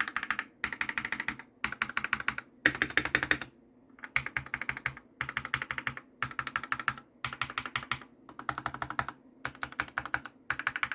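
Typing on an SK87 mechanical keyboard with 55g Aqua King linear switches and pudding keycaps: rapid key clacks in short bursts of under a second, broken by brief pauses about a dozen times.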